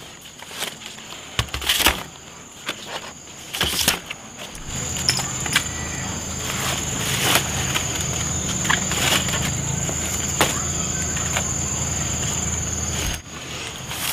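Fresh bamboo shoots being handled and dropped into a woven basket: scattered knocks and rustles on dry leaf litter, over a thin, high, steady insect drone. A steady low hum comes in about five seconds in and stops near the end.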